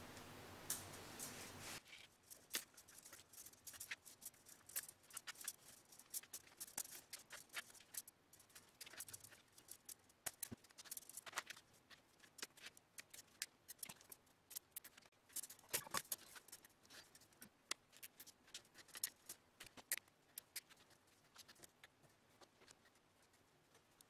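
Faint, irregular clicks and ticks of soft copper tubing and plastic zip ties being handled and fastened against a metal wire fan grille.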